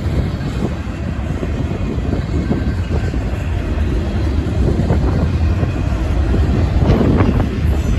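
Union Pacific freight train rolling past: a steady rumble of wheels on rail, with wind buffeting the microphone. A brief louder clatter about seven seconds in.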